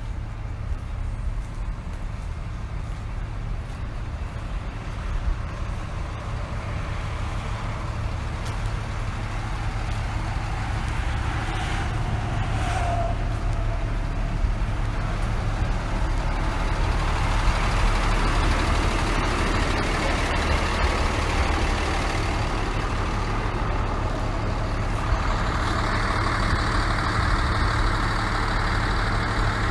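Motor vehicle noise: a steady low rumble, with a rushing hiss that grows louder about halfway through.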